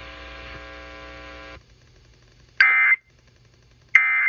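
Steady electrical hum that cuts off about a second and a half in, then two short raspy data bursts about 1.3 s apart: the Emergency Alert System end-of-message (EOM) SAME tones that close the alert.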